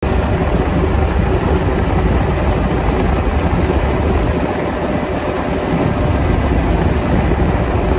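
John Deere 1025R compact tractor's three-cylinder diesel engine running with its front-mounted 54-inch snowblower engaged and throwing snow from the chute: a loud, steady mechanical drone.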